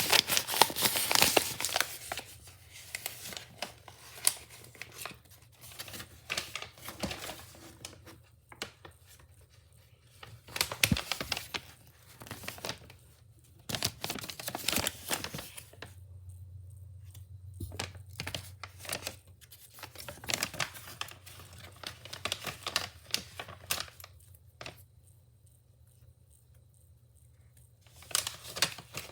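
Packaging being unwrapped by hand: irregular bouts of crinkling and tearing, loudest in the first couple of seconds, with quiet pauses between bouts.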